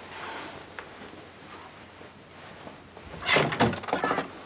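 Faint rustling, then about three seconds in a quick clatter of knocks and clicks as the Quran in its case is put away on a wall shelf.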